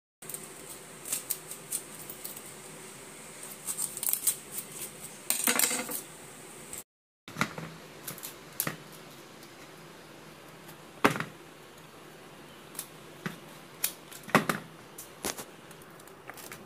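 A kitchen knife cutting florets off a raw cauliflower, with scattered crisp snaps and cracks as the blade goes through the stems and pieces break away, and light knocks of florets into a plastic bowl. The sound drops out briefly a little under halfway through.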